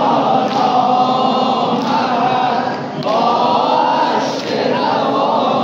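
Male voices chanting a noha, a Shia lament, together in long, wavering held lines, amplified through a microphone.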